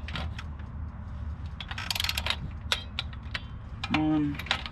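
Socket wrench ratcheting in short runs of sharp clicks, with a dense cluster about two seconds in, as the thermostat housing bolts are run down and torqued.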